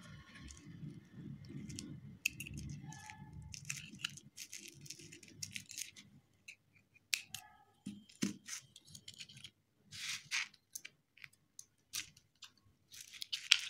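Metal dental instrument scraping and clicking against an acrylic trial denture base as it is pried off its stone cast, in irregular short scrapes and clicks, with low rubbing handling noise in the first three seconds or so.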